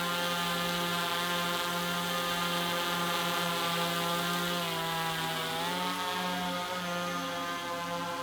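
DJI Mavic 3-series quadcopter flying, its motors and propellers giving a steady buzzing whine of many layered tones. The pitch shifts about five to six seconds in as the motors change speed.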